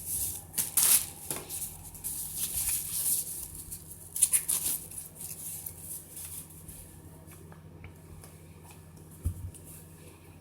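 Packaging being handled and unwrapped, rustling and crinkling in irregular bursts, loudest in the first half, then a few light clicks and a soft thump near the end.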